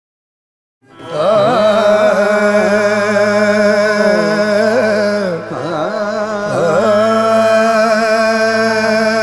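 Background music, starting about a second in after a moment of silence: a steady held drone under a slow, wavering melodic line with gliding ornaments, in an Indian classical style.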